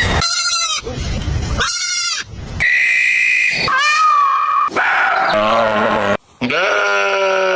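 A quick series of different pitched animal calls, each about a second long, spliced one after another with abrupt cuts. Some of the calls waver in pitch, one holds a steady high tone, and the last rises.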